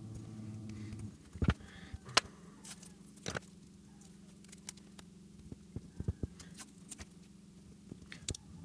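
Scattered light clicks and taps from hands handling the metal speaker basket and field-coil housing and pressing paper masking into them, the sharpest about one and a half and two seconds in. A low hum sits underneath, louder in the first second.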